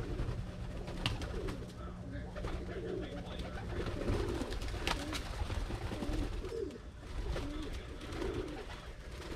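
Pigeons cooing, soft low warbling calls repeated every second or so, with scattered sharp clicks over a steady low rumble.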